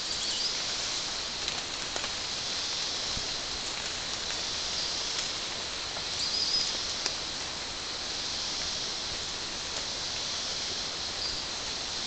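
Rainforest ambience: a steady high-pitched hiss with a few short high chirps from small animals and occasional faint clicks.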